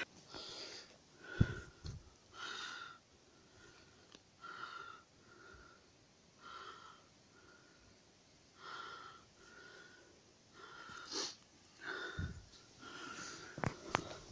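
A person breathing in and out close to the microphone, a soft breath about every second with a faint whistling wheeze in it. A few dull thumps of camera handling come in between.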